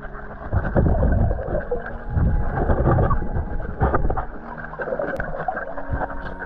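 Muffled water sloshing and swishing around a camera at or under the water surface while snorkelling, rising in three heavy surges in the first four seconds.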